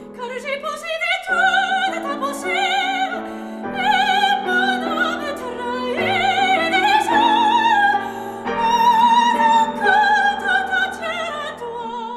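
Classical soprano singing a French art song with a wide, even vibrato, accompanied by a grand piano. The voice rises and swells through the phrases.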